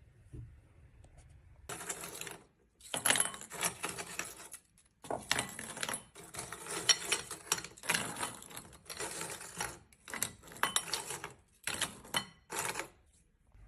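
Small hard objects clinking and clattering in a run of bursts, each a second or so long with short gaps between them.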